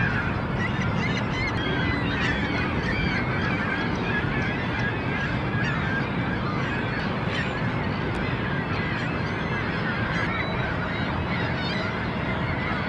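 A large flock of birds calling continuously, many short calls overlapping at once at a steady level.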